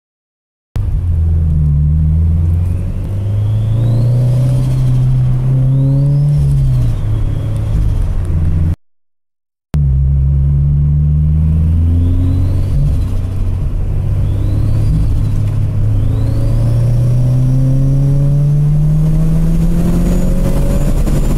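Turbocharged Subaru BRZ flat-four with a Garrett GT3076R turbo, revving and accelerating through several pulls, its pitch climbing and falling repeatedly. A high turbo whistle rises and falls with each pull. The sound cuts out briefly about a third of the way through, then resumes.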